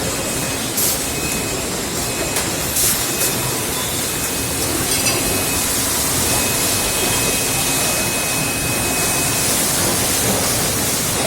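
Chest freezer production-line machinery running: steady factory noise with short hissing bursts, about one and three seconds in.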